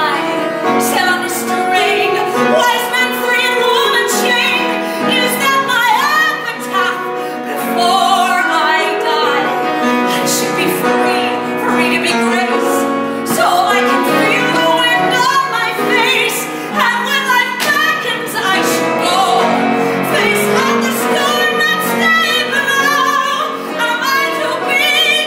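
A woman singing a musical-theatre song solo, with vibrato on the long notes, over steady held accompaniment chords.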